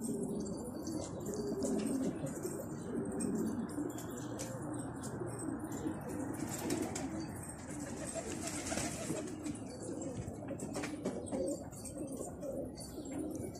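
Domestic pigeons cooing in a steady murmur, with wing flaps and many small clicks of pecking at the ground.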